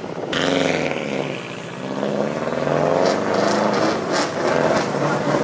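Subaru Impreza WRX rally car's turbocharged flat-four launching hard from the stage start and accelerating away, its revs climbing and dropping through several gear changes. There are a few sharp cracks about three to four seconds in.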